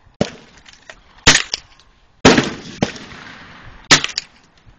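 Gunshots fired outdoors: about five single shots at irregular intervals, each a sharp crack. The loudest comes a little over two seconds in and is followed by a long rolling echo.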